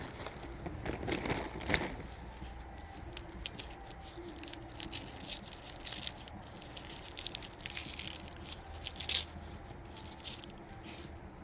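Crinkling and light clicking of packing material and stone slabs being handled, with louder bursts about a second or two in and again around nine seconds in.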